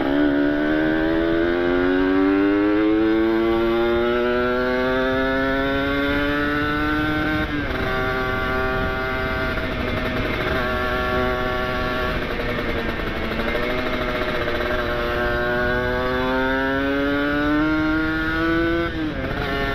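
Kawasaki Ninja RR two-stroke single-cylinder engine with an ABRT20 aftermarket exhaust, heard from on board while riding. The engine pitch climbs steadily for about seven seconds, drops suddenly, holds fairly steady, then climbs again and drops once more near the end.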